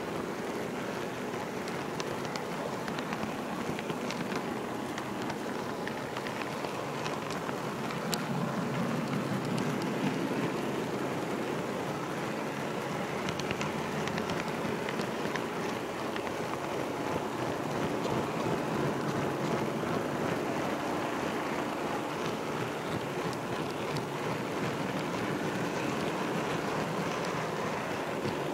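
HO-scale model railroad camera car rolling along the track: a steady rolling rumble from its small metal wheels on the rails, with scattered light clicks.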